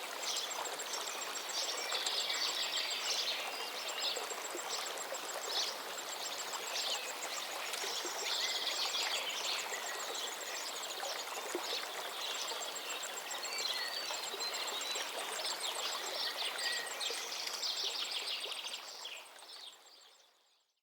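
A river or stream flowing steadily, with many songbirds singing and chirping over it and a fast, high ticking trill repeating through it. The whole sound fades out near the end.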